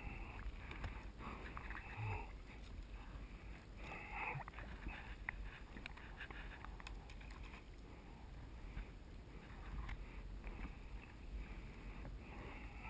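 Double-bladed kayak paddle strokes in calm water: the blades dip and pull with uneven splashes and drips, over a steady low wind rumble on the microphone.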